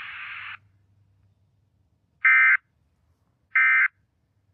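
Weather-radio static hiss that cuts off about half a second in, then two short, identical buzzy data bursts a little over a second apart: the Emergency Alert System end-of-message code that closes a weather radio warning broadcast.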